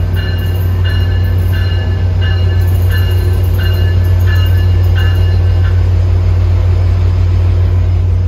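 Tri-Rail diesel locomotive pulling into the station with a loud, steady low engine drone. Its bell rings about twice a second, then stops a little over halfway through.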